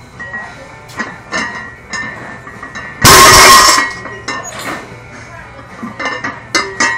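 Iron plates on a loaded barbell clinking and knocking as the bar is gripped one-handed and tugged against the floor, with a very loud, distorted burst about three seconds in that lasts under a second.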